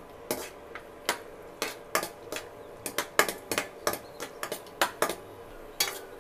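Metal spoon clinking and scraping against a stainless steel kadai as cashews and raisins are stirred in ghee: a string of irregular sharp clicks, several a second.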